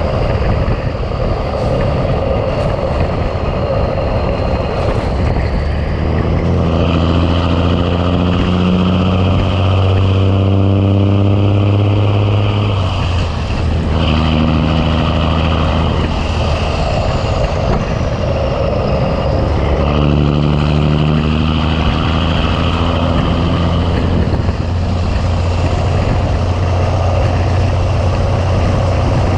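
Big Cam Cummins inline-six diesel in a 1986 Ford LT9000 truck running under load while hauling a heavy trailer. A steady low drone with an engine note that comes in strongly a few seconds in, breaks off about halfway, and returns twice more.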